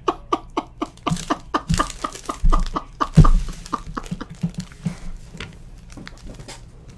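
A man laughing hard in a quick run of short bursts that tapers off after about five seconds, with two low thumps about two and a half and three seconds in.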